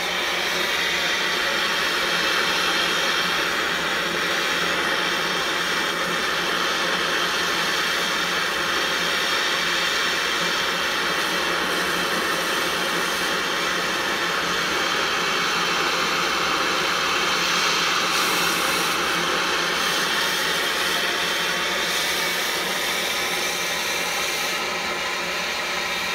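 Gas torch burner on a Campingaz cartridge burning with a steady hiss, its flame playing on the blade of a kitchen knife.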